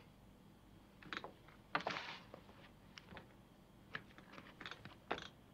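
A blade shaving and cutting wood: a handful of faint, irregular clicks and short scrapes.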